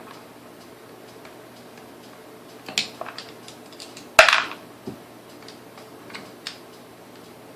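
Small metal parts and hand tools clinking and tapping on a workbench while a Sunbeam Mixmaster's gearbox is taken apart, with a few scattered clinks and a sharper clank about four seconds in.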